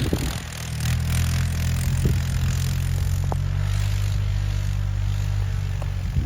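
Vehicle engine running steadily under load as it tows a sled through snow, with a few light knocks.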